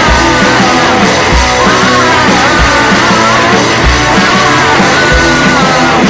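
Loud rock-style music with a sung melody over a drum beat.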